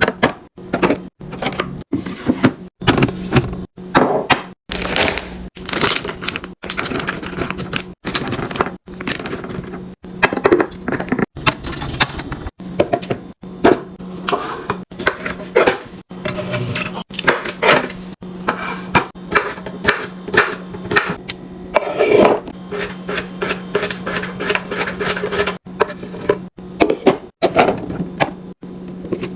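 Quick run of clicks, knocks and clatter from food packages and plastic containers being handled and set down, broken by many abrupt cuts, over a steady low hum.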